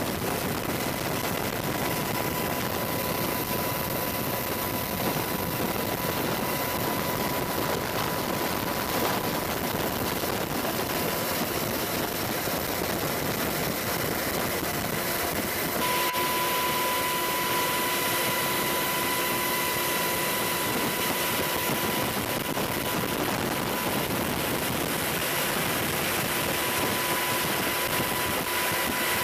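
Steady drone of military helicopter turbine engines and rotors, with a constant high-pitched whine over a broad rushing noise. About sixteen seconds in the sound changes abruptly: the high hiss drops away and the whine grows louder.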